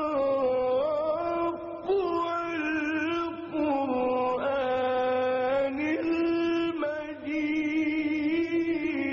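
A male reciter's melodic Quran recitation: long held notes with ornamented turns of pitch, broken by a few brief pauses.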